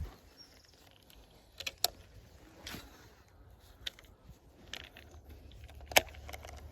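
Fishing tackle being handled: a handful of light metallic clicks and rattles, the sharpest one about six seconds in.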